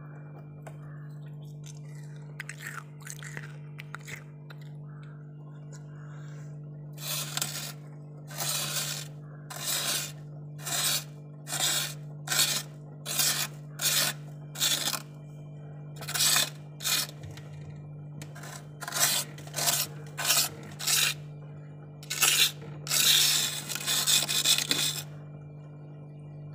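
A plastic spoon scraping frost off the inside walls of a freezer in short strokes about one a second, starting some seven seconds in and stopping shortly before the end, with a steady low hum underneath.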